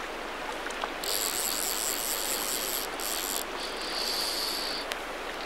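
Fly reel's clicker drag buzzing in several high-pitched runs as a hooked trout pulls line off, over the steady rush of the river.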